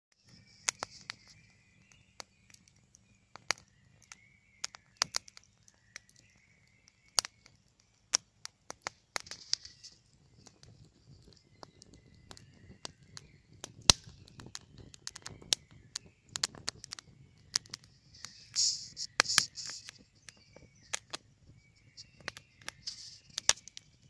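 Wood campfire crackling, with sharp irregular pops from the burning sticks over a low rush of flame. Birds sing in short phrases at intervals, loudest about three-quarters of the way through.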